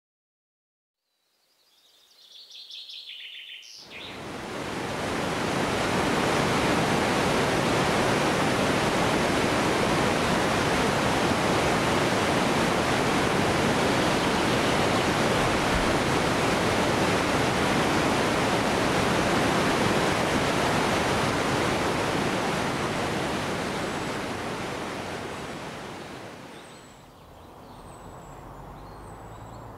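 Rushing water, a steady even roar like a waterfall or rapids, swelling in about four seconds in and fading out a few seconds before the end. A few faint bird chirps come before the water rises and after it fades.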